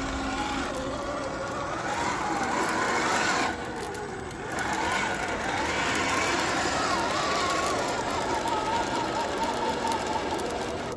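Brushed electric motor and drivetrain of a 1/10-scale RC crawler whining as it drives, the pitch wandering up and down with the throttle, over a steady rough noise of the truck working over the ground. The sound dips briefly about three and a half seconds in.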